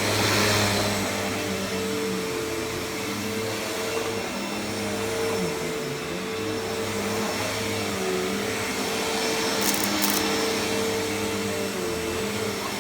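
Hoover Elite vacuum cleaner with a 12-amp motor running steadily, a constant motor whine whose pitch dips briefly a few times.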